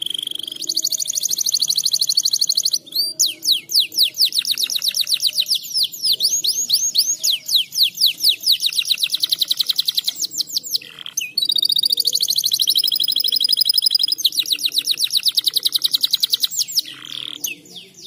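Domestic canary singing a long song of fast rolling trills, the trill type changing every few seconds with brief breaks between phrases. It is the song of a canary in breeding condition.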